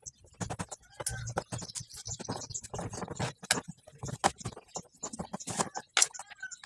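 Hands handling the rear amplifier panel of an active speaker cabinet, making irregular clicks, taps and knocks while the panel is being taken apart.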